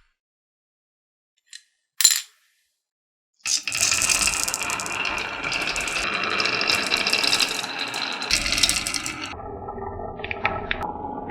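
Marbles rolling and clattering down a marble run track. A single click comes about two seconds in, then from about three and a half seconds a continuous rattle of many small hard clicks, which eases off a little near the end.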